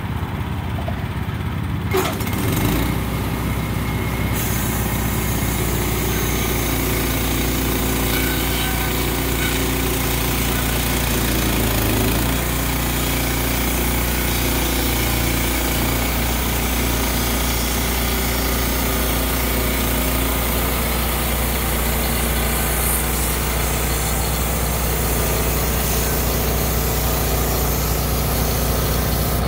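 Wood-Mizer LX25 portable band sawmill running: its gas engine speeds up with a knock about two seconds in, then runs steadily under load as the band blade is pushed along into the log for its first cut.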